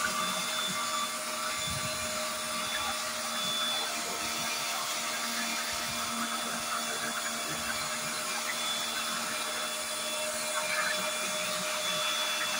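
Pressure washer running steadily: the jet of water hisses against a D4BB diesel cylinder head while the pump motor gives a constant hum underneath.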